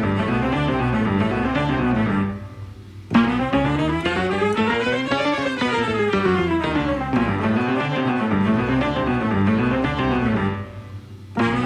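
Instrumental background music: a melodic line moving in quick up-and-down runs over a bass, breaking off briefly twice, about two and a half seconds in and again near the end.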